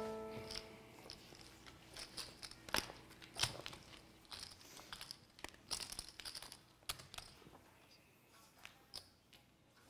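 A plucked-string chord rings out and fades away within the first second. After it come faint, scattered short clicks and crackles, irregular and a few at a time, dying away after about seven and a half seconds.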